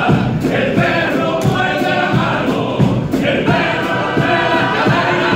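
A Cádiz carnival comparsa singing its presentación in chorus, many male voices in harmony over regular drum beats and instrumental accompaniment, heard live from the audience.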